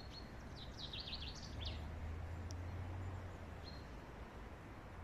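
Small songbird calling: a quick run of high chirps in the first two seconds, then one short note a little before the end, over a steady low background rumble.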